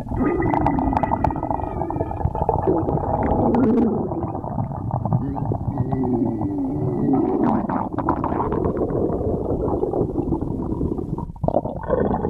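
A person's stomach growling: long, continuous gurgling rumbles with squeaky tones that glide up and down. The sound dips briefly near the end.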